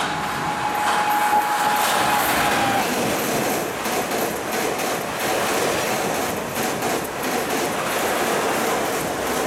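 A WAP-7 electric locomotive and its LHB coaches run past at about 130 km/h over a viaduct: a loud, steady rush of wheels on rail with rapid clicks from the track. A thin steady tone from the locomotive drops slightly in pitch as it goes by and fades out about three seconds in.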